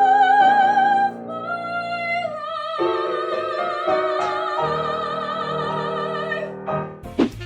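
A singer sustains long, lofted notes with a steady vibrato over piano chords, carrying the phrase through without a breath. Near the end it breaks off into a quick falling sweep and different music.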